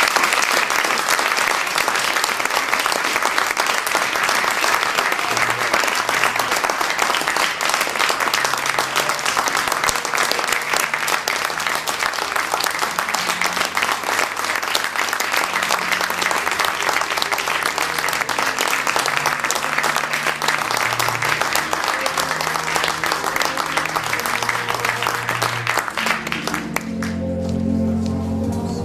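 Theatre audience applauding steadily at a curtain call, with music playing underneath. The applause dies away near the end, leaving the music on its own.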